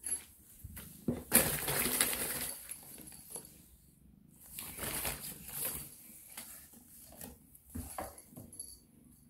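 Crinkly rustling of a collapsible fabric cat tunnel as a cat scrambles into and through it, with a loud burst about a second in, another near the middle, and lighter scuffs after.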